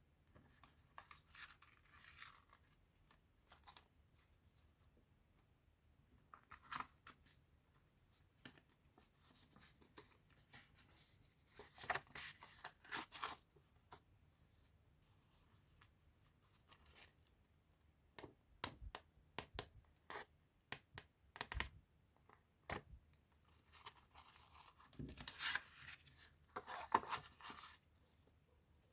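Quiet hand-handling of scrapbooking supplies and their packaging: spells of paper and plastic rustling and tearing, with scattered short clicks and taps in between.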